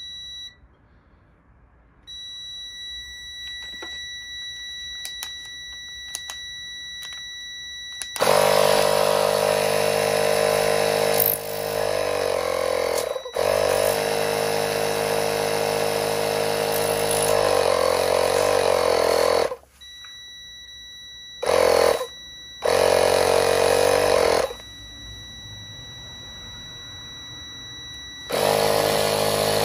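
A multimeter's continuity beep sounds as one long steady tone, broken by a handheld electric air pump running in loud bursts, one of about eleven seconds and then several shorter ones, as it pressurises an oil pressure switch. The beep keeps going with the pressure on, up to about 45 psi: the switch is not opening, so it has failed.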